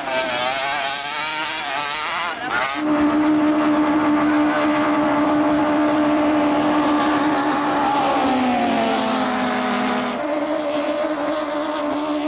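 Racing longtail boat engines running flat out: a loud, steady, high engine note with abrupt cuts between clips about three and ten seconds in. The note drops in pitch a little about eight seconds in.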